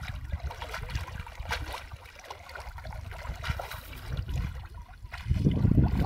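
Water splashing and dripping as a cast net is drawn up out of shallow muddy water by hand. A louder low rumble comes in about five seconds in.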